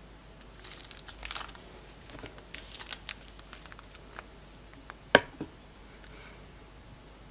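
Slime being handled close to the microphone: a run of sticky crackles and clicks, then one loud pop about five seconds in.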